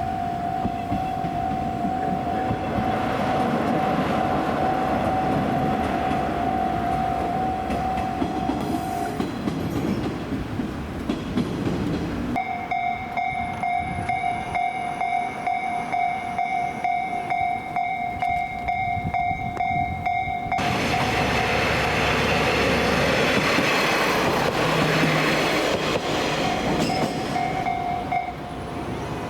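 A Japanese level-crossing warning bell rings its steady 'kan-kan' while trains rumble and clatter past. The bell stops partway through as a train is still going by, rings on alone for a while, then sounds under a second passing train and falls silent near the end.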